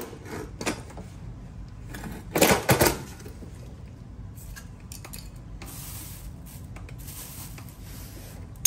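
Metal tool clinking against the oil filter housing as it is worked loose: a sharp click at the start, another just under a second in, and a louder short clatter about two and a half seconds in.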